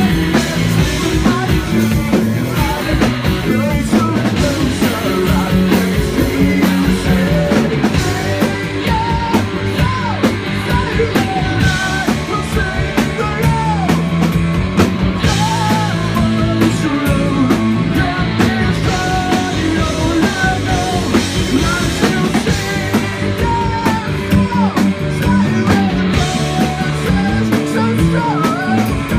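Live rock band playing loud and steady: drum kit, distorted guitar and bass, with a wavering, bending melodic line over the top.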